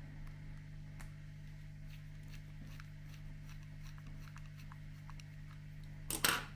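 Faint small clicks of a screwdriver turning a small screw into the plastic underside of a Bachmann class 08 OO gauge model locomotive, over a steady low hum. Near the end comes a brief, louder handling sound.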